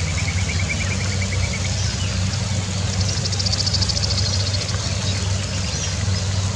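A steady low droning hum, like a motor running, with a rapid high trill near the start and a second, higher rapid trill about three to five seconds in.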